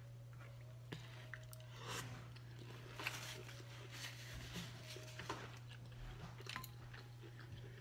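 Faint mouth sounds of a person chewing and eating seafood, with a few short smacks and clicks, over a steady low hum.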